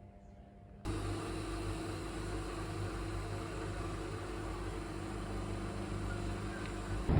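Steady mechanical hum and rumble with a low drone, starting abruptly about a second in after near-quiet room tone.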